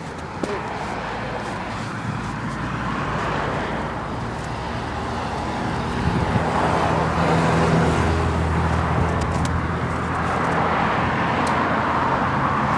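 A motor vehicle's engine running close by with a steady rushing noise, growing louder about halfway through.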